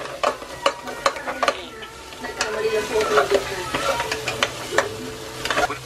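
A metal spoon stirring and scraping chopped meat as it fries in oil in a stainless steel pot: steady sizzling with irregular clinks and scrapes of the spoon against the pot.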